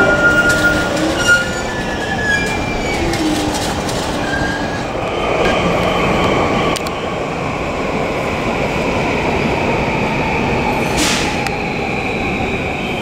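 JR East Tokaido Line commuter electric train running along the platform: a steady rumble with a motor whine that steps in pitch early on and then slowly falls, and a steady high squeal from the wheels. A brief hiss comes about eleven seconds in.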